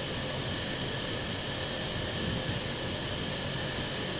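Steady cockpit noise of an Airbus A321neo on final approach in landing configuration: an even rush of airflow over the airframe with a few faint steady tones from the flight-deck fans and avionics.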